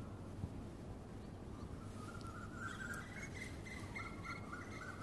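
Low outdoor background hum. From about halfway, a series of short, high chirping notes repeats.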